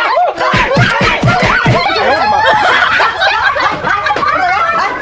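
Several people laughing and giggling at once, overlapping.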